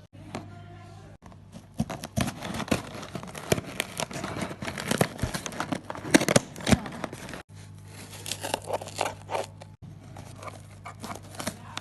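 Rapid, irregular crinkling and crackling of handled plastic, busiest in the first half and thinning out later, broken by a few abrupt cuts.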